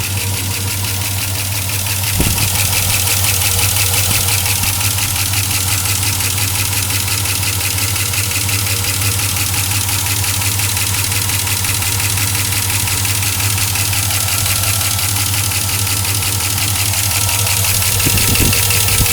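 2004 Chevrolet Silverado's 5.3-litre V8 idling with a loud, fast, even ticking over its running note, the tick the owner says is most obvious when the engine is cold. A brief knock sounds about two seconds in.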